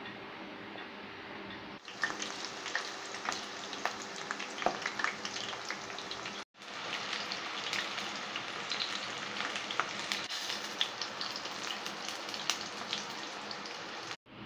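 Ragi-and-onion pakoda batter deep-frying in hot oil: a steady sizzle full of small crackles and pops. About two seconds in, a quieter hiss gives way to the busy crackle, which drops out briefly twice.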